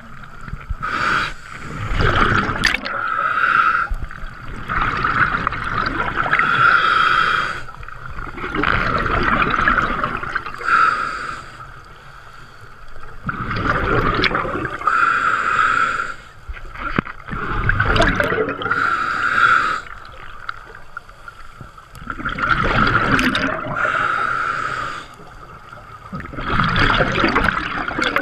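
Scuba diver breathing through a regulator underwater: a bubbling, hissing breath cycle about every four seconds, seven in all.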